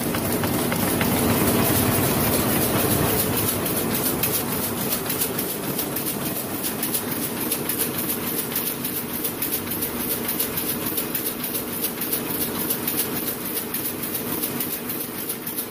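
Heidelberg Speedmaster SM 52-2 two-colour sheet-fed offset printing press running at full speed: a fast, even mechanical clatter.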